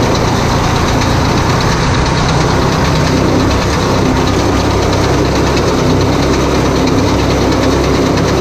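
Tractor engine running steadily while towing and driving a round baler that is picking up hay. A dense, even mechanical rattle lies over the engine's hum.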